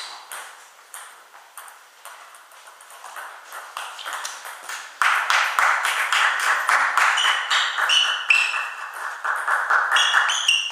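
Celluloid/plastic table tennis ball being struck by rubber-covered bats and bouncing on the table in a doubles rally, a quick series of sharp clicks. About halfway in, a louder hissing noise comes in underneath, with a few short high squeaks near the end.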